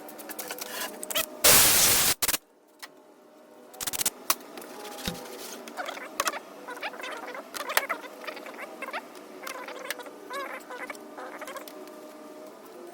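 Metal tools clinking and clattering as they are handled and sorted, with short squeaky scrapes of metal on metal. A loud hiss lasts a bit under a second near the start.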